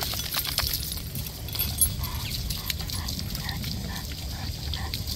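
A bully-breed dog whining in short repeated notes, about two to three a second, starting about two seconds in, while a garden hose hisses and spatters as it rinses a dog on concrete.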